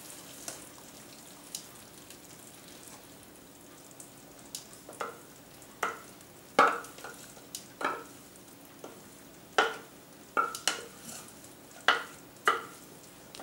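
A wooden spoon scrapes thick pepper purée out of a plastic blender jug, knocking against it in about ten sharp taps that begin about four seconds in. Under the taps is a faint steady sizzle from the pan of risotto.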